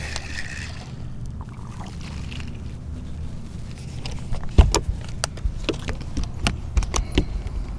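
Low steady rumble, then from about halfway a run of sharp knocks and thumps, the first the loudest, as a just-caught crappie is swung aboard and lands and is handled in the boat.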